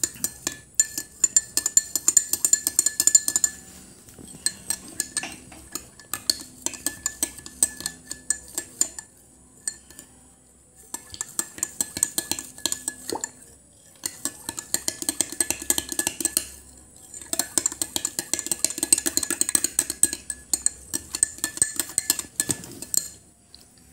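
Metal spoon stirring fast in a glass of warm milk and raw egg, clinking rapidly against the glass wall, with a few brief pauses. The stirring blends the egg into the milk.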